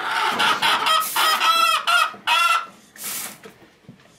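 Chickens calling loudly: clucking and squawks, with a rooster's crow among them, over the first two and a half seconds. A short rustle follows a little after three seconds.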